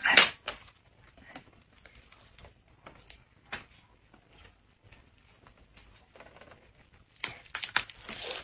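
Soft clicks and rustles of hands assembling pancake wraps on plates, opening with one short loud rustle; near the end, a quick run of crisp crunches as a bite is taken into a lettuce-filled hand-grabbed pancake (shou zhua bing).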